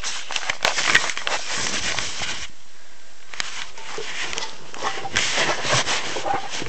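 Rustling and crackling handling noise on a phone microphone, with many sharp clicks, as the phone is moved and its lens covered. It eases off briefly about two and a half seconds in, then picks up again.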